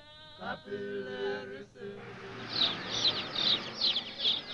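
A voice singing a short chanted line, then from about two seconds in a crowd of baby chicks peeping: a dense background of cheeping with loud, high peeps that fall in pitch, about three a second.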